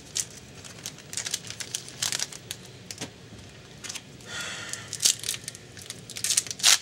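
Trading cards and their foil pack wrapper being handled: a string of short crinkles and crackles, with a longer rustle about four and a half seconds in.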